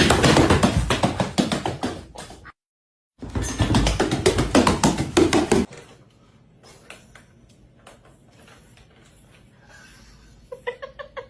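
Two bursts of rapid knocking, each about two and a half seconds long with a short silence between, followed by faint scattered ticks.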